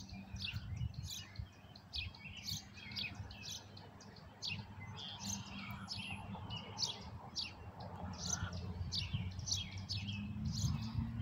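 Small birds chirping: short high calls repeating at about two a second, over a faint low rumble.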